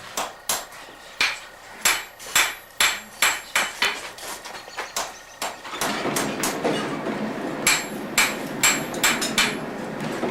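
Blacksmith's hammer striking iron on an anvil, a run of sharp ringing blows about two a second, a short pause, then another run. A steady rushing noise comes in about six seconds in.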